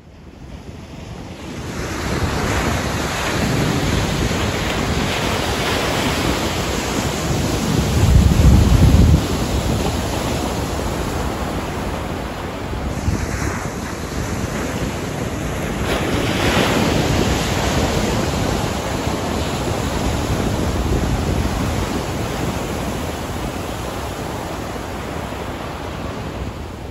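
Pacific surf breaking and washing up a sandy beach in a steady, swelling and ebbing rush, with wind on the microphone. A deep rumble stands out about eight seconds in.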